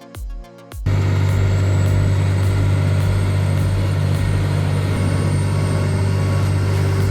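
Electronic background music with a steady beat for under a second, then a sudden cut to a heavy machine's engine running steadily: a loud, even, deep drone with a faint high whine above it.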